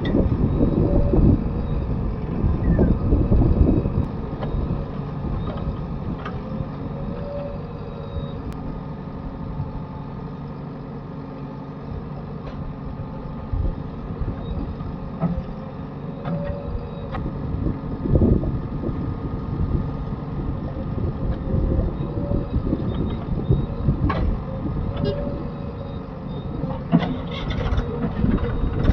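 A heavy diesel machine's engine running and working under varying load, with scattered knocks and clangs of the work.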